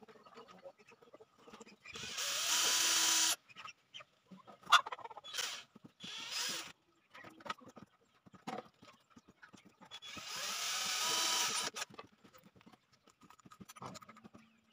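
Cordless drill running in two bursts of about a second and a half each, one about two seconds in that cuts off suddenly and one about ten seconds in, working into the wooden frame. Short clicks and knocks from handling the wood fall between them.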